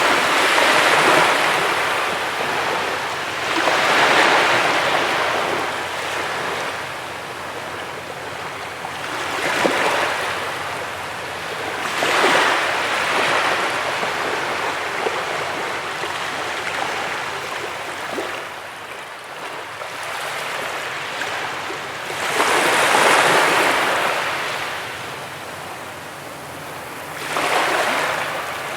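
Sea waves breaking and washing up a beach, surging every few seconds, with the biggest wave about three-quarters of the way through.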